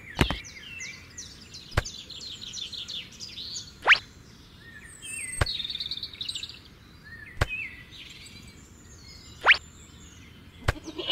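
Birds chirping and twittering in short bursts, with about seven sharp clicks spaced through it. Two of the clicks have a quick rising swish.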